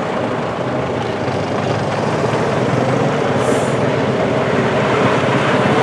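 Volvo FH16 truck's straight-six diesel engine running at low revs as the tractor unit pulls its trailer through a turn. It grows louder as the truck comes closer. A short hiss comes about midway.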